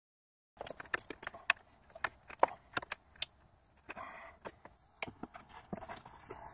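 Rubber radiator hose being twisted and pulled off its plastic radiator outlet by hand after its spring clamp has been loosened: an irregular run of small clicks and creaks that starts abruptly about half a second in, dense at first and sparser in the second half.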